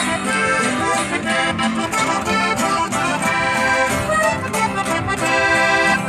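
Accordion playing a lively instrumental norteño passage of held, shifting chords, with guitar strummed underneath.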